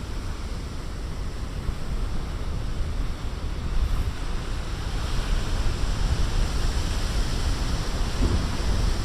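Big storm-driven ocean surf breaking on the shore: a continuous, even wash of noise with a heavy low rumble, building slightly louder about halfway through.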